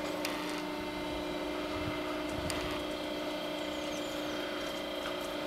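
Electric drive of a German level crossing's barriers humming steadily as the booms rise, with a few faint clicks.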